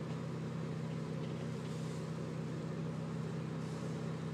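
A steady low mechanical hum like a running engine, even in level throughout.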